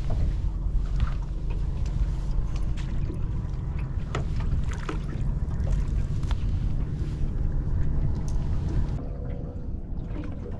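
Wind rumbling on the microphone and water around a small boat, with scattered sharp clicks and knocks as a hooked flathead is brought in.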